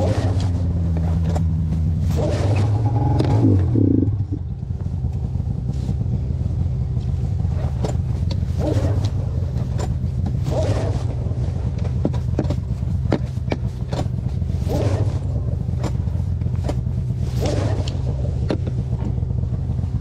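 Arctic Cat M7 snowmobile's Suzuki 700 two-stroke twin engine running while the sled is ridden. It revs up a few seconds in, eases off around four seconds, then holds a steady pace.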